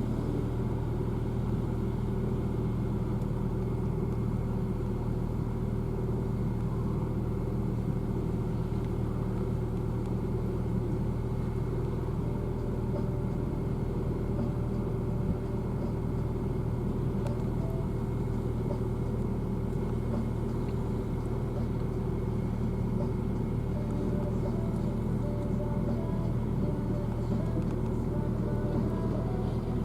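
A motor vehicle's engine running at a steady speed, a constant low drone that does not change.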